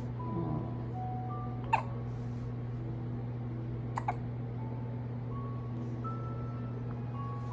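Baby hiccuping: one sharp hiccup about two seconds in and two quick ones close together around four seconds. Under them run a faint, slow tune of single held notes and a steady low hum.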